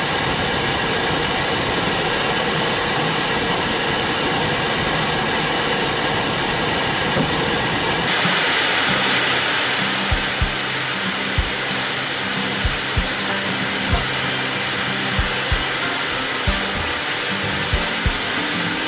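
L-39 Albatros jet's Ivchenko AI-25TL turbofan running at takeoff power: a loud steady roar with many whining tones layered in it. About eight seconds in, the engine noise turns hissier, and a music track with a beat and a bass line fades in under it.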